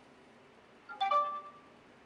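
A short electronic chime from a smartphone about a second in, several pitches sounding together and fading within about half a second: the one-touch app signalling that reading the washing machine's control board is complete.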